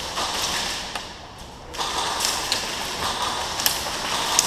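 Airsoft electric guns firing rapid full-auto bursts, a fast mechanical rattle, with a short pause about a second in. A few sharp clicks stand out near the end.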